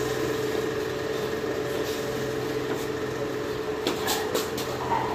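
A steady mechanical hum, with a few short sharp clicks about four seconds in.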